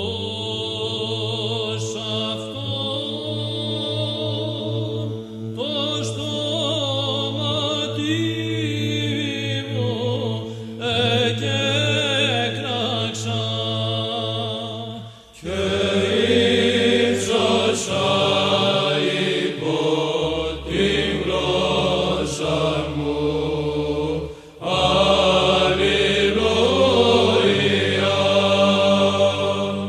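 Byzantine chant sung in Greek by a choir of Orthodox monks, in the plagal second mode. A melody line moves over a steady held drone (the ison). There are two short breaks, about halfway and near the end, and after the first one the drone moves lower.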